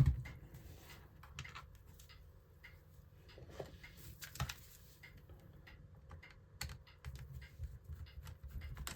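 Scattered light clicks and ticks of small hand tools and fingertips on a laptop's plastic screen bezel as tiny screws are taken out from under its rubber covers, with a sharper tap about halfway through.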